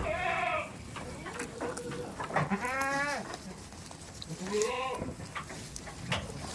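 Goats bleating: three calls, the middle one longest, with a wavering quaver.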